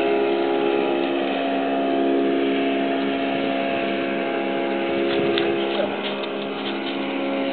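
Steady drone of an engine running at an even speed, with a few faint clicks about five seconds in.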